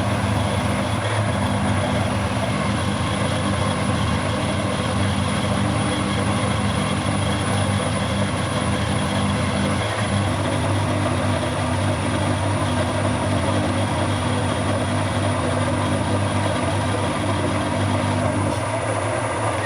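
Workshop machine tool running steadily, a constant low hum with a broad cutting noise over it, stopping abruptly at the very end.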